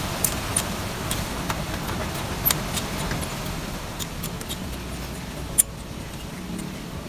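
Scattered sharp metallic clicks and clinks of hand tools on the motorcycle's exhaust bolts, the loudest about five and a half seconds in, over a steady low rumble.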